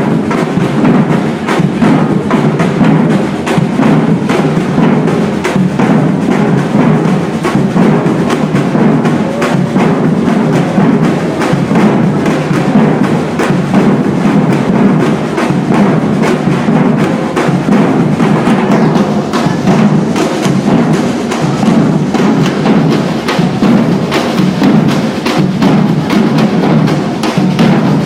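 A percussion ensemble of many drums playing a dense, loud, unbroken groove: rapid strikes over a heavy low drum pulse.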